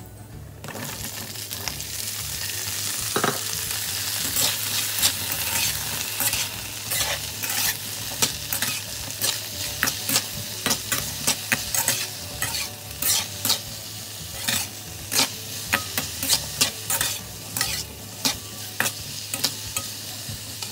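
Food sizzling as it fries in a pan, with a utensil stirring and knocking against the pan, at first irregularly and then about once or twice a second. The sizzle comes up within the first second.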